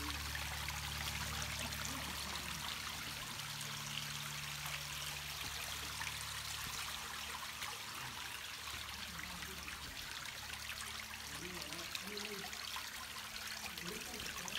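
Shallow creek water running and trickling over rock ledges: a steady rush of flowing water.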